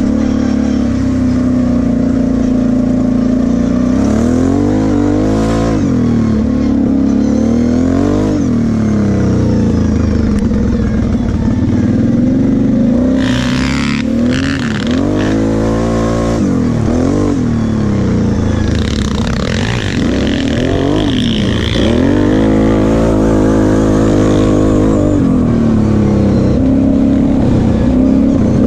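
Kawasaki KFX 700 V-Force quad's V-twin engine being ridden, its revs rising and falling every second or two as the throttle is opened and closed.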